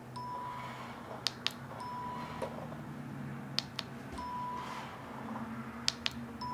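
A ProStitcher quilting computer on a longarm quilting machine beeps as stitch points are marked in record mode. Each short, mid-pitched electronic beep comes roughly every two seconds, shortly after a quick double click, over a steady low hum.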